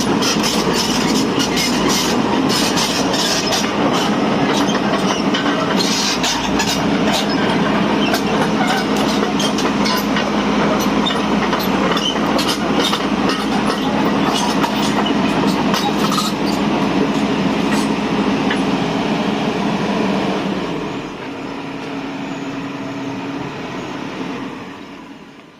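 Volvo hydraulic excavator working: its diesel engine runs under load with a steady hum, and dense metallic clanking and squeaking rides over it, likely from the steel tracks and the working gear. Near the end it drops to a lower level and then dies away.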